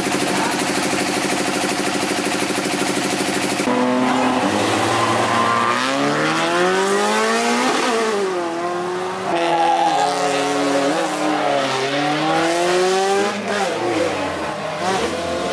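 Race car engine at a drag race, holding a steady note for the first few seconds, then accelerating hard. Its pitch climbs in several runs, with sudden drops between them at the gear changes.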